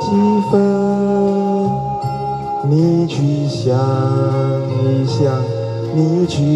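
Karaoke music playing through a portable party speaker: a melody of long held notes that slide from one pitch to the next.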